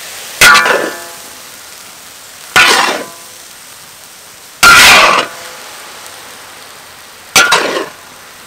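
Metal spatula scraping and striking a large metal wok as a heap of fried noodles is tossed: four strokes about two seconds apart, each with a brief metallic ring, over a faint steady hiss.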